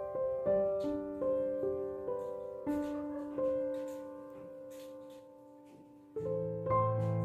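Background piano music: a slow, gentle melody of single notes that dies away, then a fuller phrase with deeper notes comes in about six seconds in.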